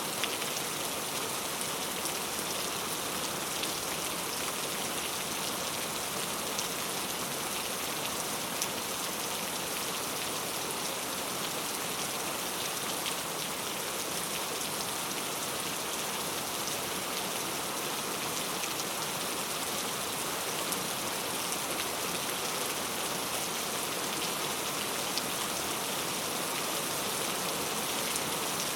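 Heavy rain falling steadily, a dense, even hiss of many drops with fine scattered ticks of individual drops hitting a surface.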